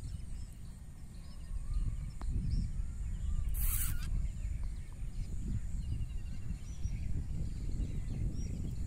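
Outdoor rural ambience: scattered bird chirps and short trills over a gusting low wind rumble on the microphone, with a brief loud hiss about three and a half seconds in.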